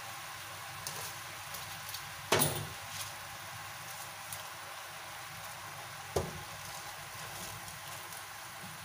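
Mushrooms sizzling quietly in a frying pan under a heap of fresh spinach leaves being pressed down by hand, with a sharp knock about two seconds in and a smaller one about six seconds in.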